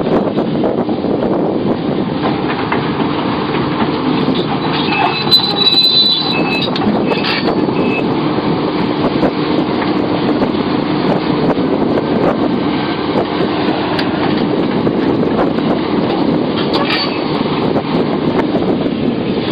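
Sumitomo SH700LHD-5 excavator running steadily under load, with brief high-pitched squeals about five to eight seconds in.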